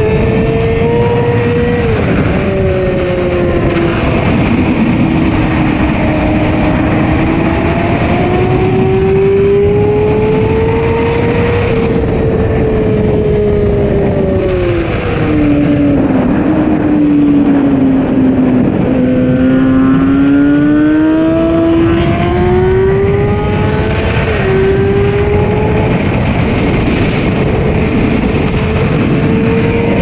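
Sport motorcycle's engine running under way, its pitch sinking as the throttle comes off and climbing again as it pulls. The pitch drops suddenly twice, once near the start and once near the end, as the rider changes gear. A steady wind rush runs beneath it.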